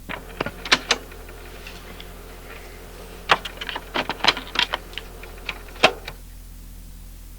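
A scattering of irregular clicks and knocks, bunched in the first second and again between about three and six seconds in, over a steady electrical hum and tape hiss.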